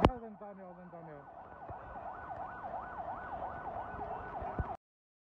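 Emergency vehicle siren in a fast yelp, rising and falling about three times a second. A sharp knock comes right at the start, and the sound cuts off suddenly near the end.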